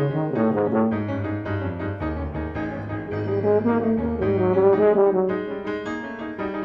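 Yamaha YFB-822 F tuba and Steinway grand piano playing a lively rag together, the tuba's brassy notes over quick, busy piano chords.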